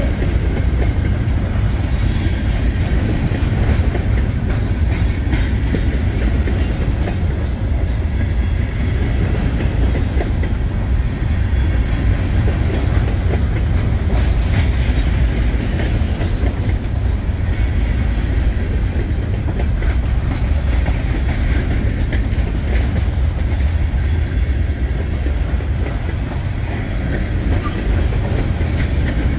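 Long gondola freight train's cars rolling past close by: a steady heavy rumble with wheels clicking over rail joints.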